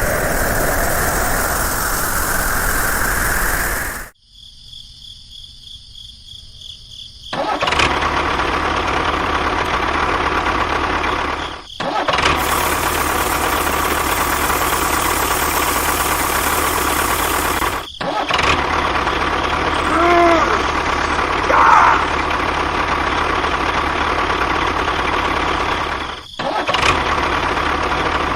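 A motor running steadily, broken by several abrupt cuts, with a quieter stretch about four seconds in.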